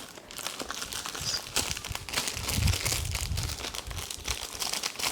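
Packaging crinkling and rustling in irregular bursts as unboxed items are handled, with a duller low handling rumble about halfway through.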